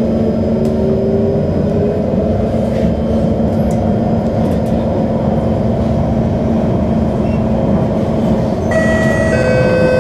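Singapore MRT electric train running, heard from inside the carriage: a steady rumble of wheels on rail with a low, constant motor hum. About nine seconds in, a whine of several steady tones from the traction equipment sets in as the train begins braking into the next station.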